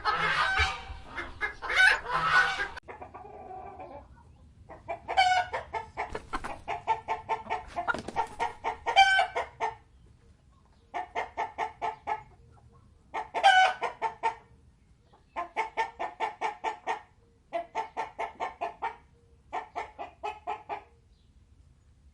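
Chickens clucking. Several birds call together for the first few seconds. After a break, the clucking comes as fast runs of short clucks in bouts of a second or two, with short pauses between.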